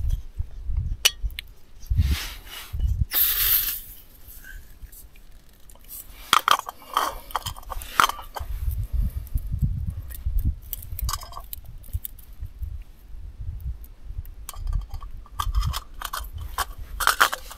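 Light metallic clinks and taps of a backpacking gas stove being screwed onto its fuel canister and its folding pot supports opened, with nested metal cook pots handled. A brief hiss comes about three seconds in.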